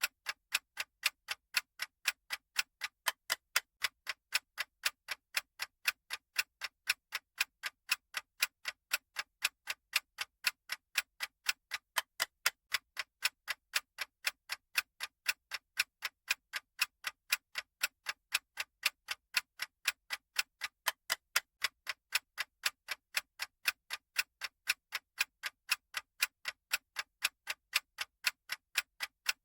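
Clock-style ticking sound effect of a countdown timer: sharp, evenly spaced ticks at a steady pace.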